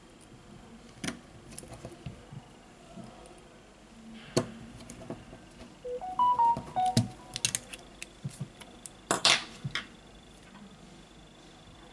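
Samsung Galaxy A70 playing its short power-on chime, a few quick stepped notes about six seconds in, as the freshly repaired phone boots to its lock screen. Light handling clicks surround it, and a sharp knock about nine seconds in is the loudest sound.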